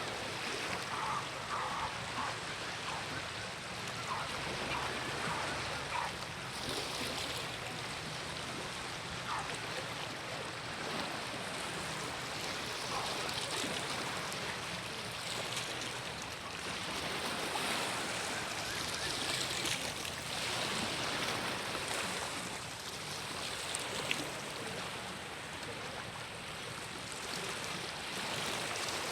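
Sea waves washing onto the shore, a steady rush that swells and eases from time to time.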